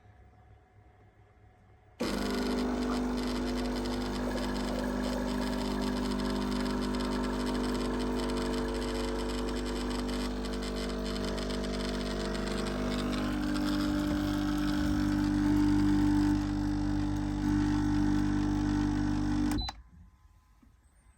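Espresso machine's pump buzzing loudly and steadily for about 18 seconds, starting and stopping abruptly, with its tone stepping higher about two-thirds of the way through.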